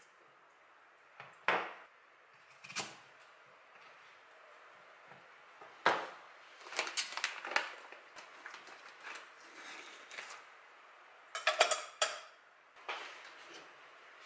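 Kitchen knife cutting an apple on a plastic cutting board: scattered sharp knocks and clicks, with a plastic fruit bag handled and set down. A tight cluster of sharp clicks comes near the end and is the loudest.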